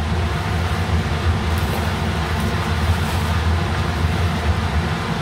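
Steady whirring hum with a strong low drone from a kitchen exhaust fan running over the stove, with a few faint rustles as leafy greens are handled into the pot.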